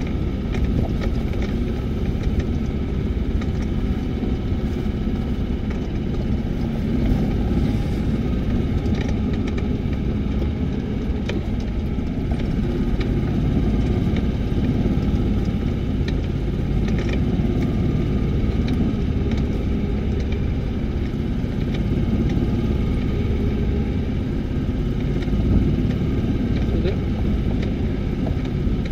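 Steady low rumble of a vehicle engine running, with scattered light clicks and knocks.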